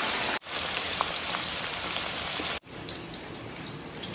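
Oil sizzling and crackling in a wok during deep-frying, a dense hiss with scattered pops. It drops out for a moment under half a second in, and past halfway it turns quieter with only sparse crackles.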